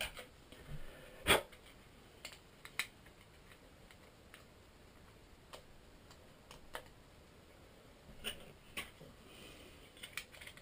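Scattered light clicks and taps from handling a small USB wireless adapter's circuit board and fitting it back into its plastic case, the loudest a little over a second in.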